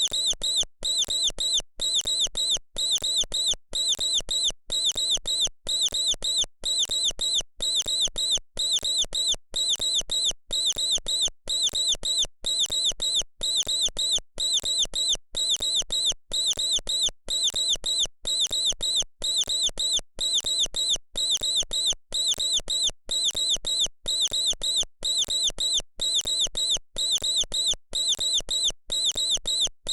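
Mouse squeaking: short, high-pitched squeaks in quick bursts that repeat evenly about every half second, without letting up.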